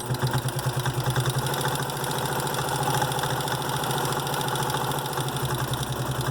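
Electric sewing machine starting up and running steadily, its needle stitching fast and evenly along a seam through layered cotton fabric.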